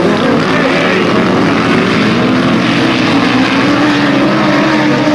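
Engines of racing grasstrack sidecar outfits, loud and continuous, their pitch wavering up and down as the throttle is worked.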